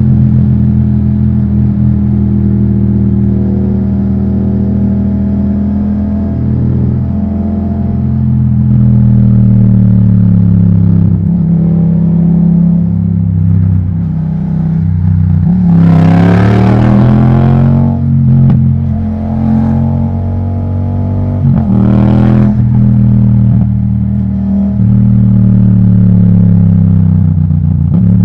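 Yamaha MT-07's parallel-twin engine through an Akrapovic titanium exhaust, heard on the move, its pitch dipping and rising as the throttle is worked. It gives two brief, louder surges of acceleration, the first just past halfway and the second a few seconds later.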